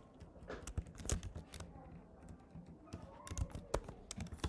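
Computer keyboard typing: short irregular runs of key clicks with brief pauses between them.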